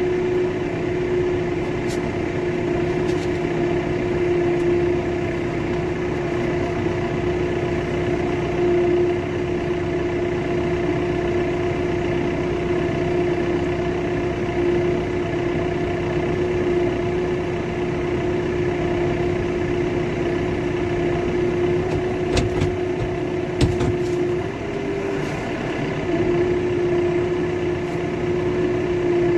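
Vehicle engine running at a steady speed, holding one even pitch. A few sharp knocks come near the end, and the pitch wavers briefly just before it settles again.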